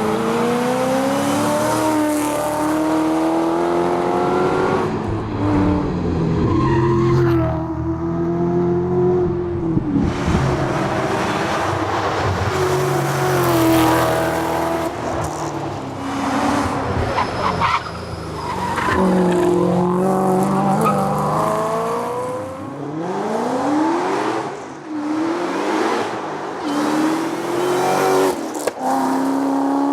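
Ford Mustang rally car's engine driven hard on a tarmac stage. It revs up again and again as it climbs through the gears, drops in pitch at each shift and under braking, then picks up again out of the corners.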